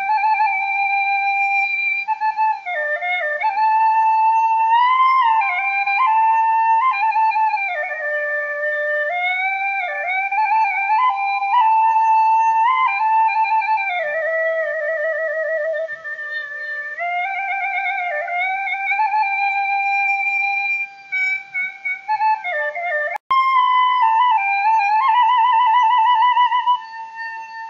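Background music: a solo flute melody of held and sliding notes, some with vibrato, with no accompaniment, and a brief break in the line about 23 seconds in.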